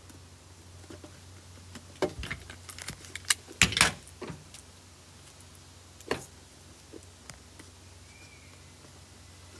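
Sticky tape and paper being handled while strips of paper are taped onto a plastic cup: a cluster of sharp crackles and clicks about two to four and a half seconds in, and one more about six seconds in.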